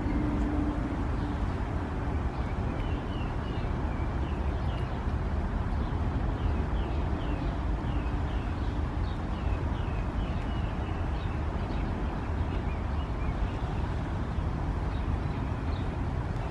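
Steady low outdoor rumble, with a series of faint, short high chirps through the middle.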